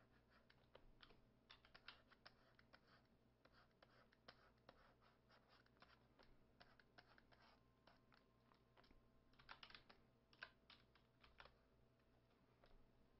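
Faint, irregular clicking and tapping from computer input devices (keyboard keys and a drawing-tablet pen) as a digital painting is worked, coming in quick runs with short gaps, over a low steady hum.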